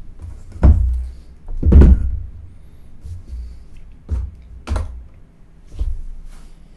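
A handful of dull thunks and knocks, about five, as the metal frame of a BT2000 wireless opacity sensor and hand tools are set down and shifted on a work mat; the loudest comes about two seconds in.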